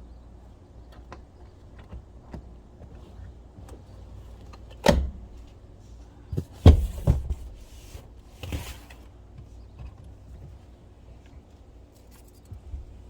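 Clicks and several heavy thumps from the seat latches and doors of a 2005 Acura MDX being worked to reach the third-row seats. The loudest thump comes about 5 s in, two more follow near 7 s, and a short rustle comes about 8.5 s in.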